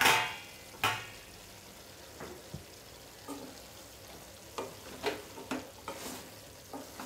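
Metal spatula stirring chicken pieces in a metal pan, with short clinks and scrapes against the pan over a faint sizzle of the chicken frying. Two louder clatters come in the first second.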